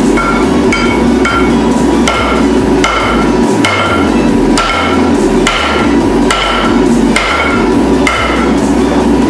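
Hand hammer forging a red-hot steel torsion bar on a round steel disc used as an anvil: steady, evenly spaced blows about one every 0.8 seconds, each with a short metallic ring, over a steady roar.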